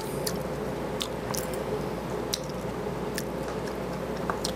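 Someone eating at the table: chewing, with a scattered handful of light clicks of utensils against dishes over a faint steady hum.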